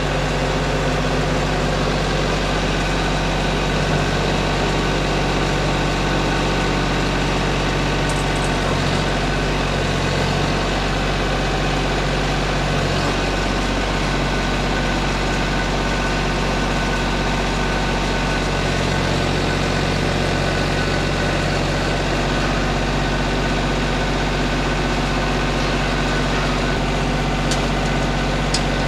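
Compact farm tractor's engine idling steadily, its low note shifting briefly a few times in the middle as the front loader is worked. A couple of sharp clicks near the end.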